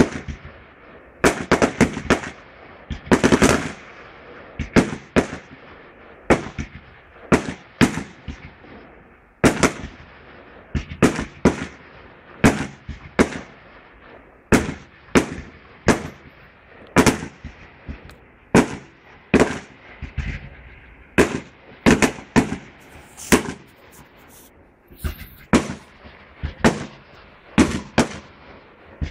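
Aerial fireworks shells bursting one after another, sharp bangs coming about one or two a second, each with a short echo trailing after it, and a denser cluster of bangs a few seconds in.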